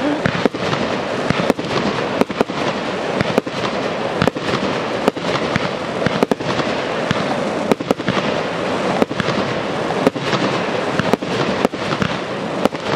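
Aerial fireworks firing a steady barrage: sharp bangs of bursting shells, roughly one or two a second, over a continuous dense crackle.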